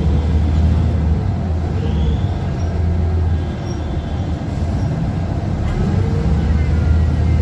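Cabin noise inside a Zhong Tong LCK6180GC bus under way: the Doosan GL11K CNG engine's low steady drone mixed with road and body rattle noise. It eases a little about halfway through, then builds again.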